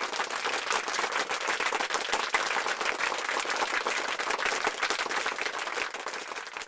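Crowd applause: dense, steady clapping that eases off near the end.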